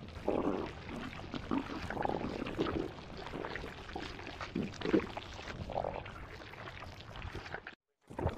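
Wet, irregular gurgling and sloshing from an animated character's stomach, broken by a brief silence near the end.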